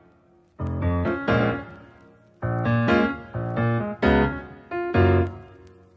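Background piano music: single chords struck and left to fade, with short pauses between them.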